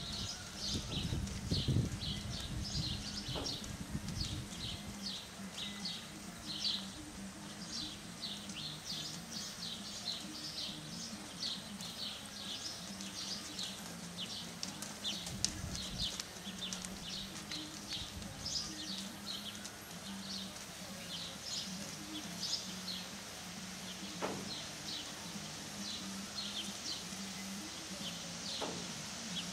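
Small birds chirping over and over, short high calls running all the way through, over a steady low hum.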